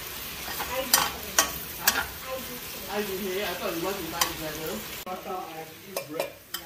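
Shallots and garlic sizzling as they are stir-fried in a stainless-steel wok, with a metal spatula scraping and clinking against the pan several times. About five seconds in, the sizzle drops off, and a few more sharp clinks follow.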